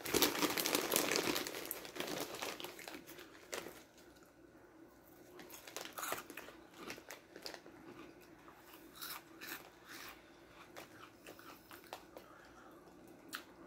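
Snack bag crinkling and Cheetos being crunched: a dense crackle in the first couple of seconds, then softer, scattered crunches of chewing that die away.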